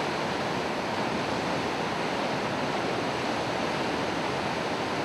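Steady rushing of a large waterfall, an even roar of falling water that does not change.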